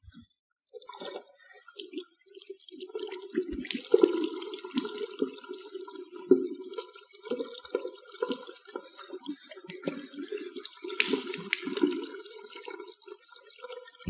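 Tap water running into a washbasin, starting just under a second in, with uneven splashing as hands wash and scoop water to the face.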